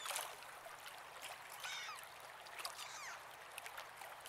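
Faint water lapping with light scattered clicks, and two short falling bird calls, one about one and a half seconds in and one about three seconds in.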